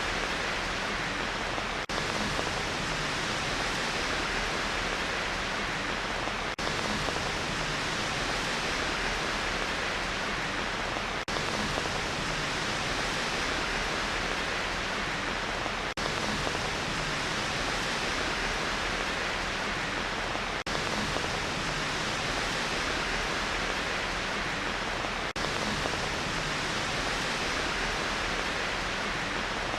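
Steady, even hiss of rain noise made for sleep, with a faint break roughly every four to five seconds where a short loop restarts.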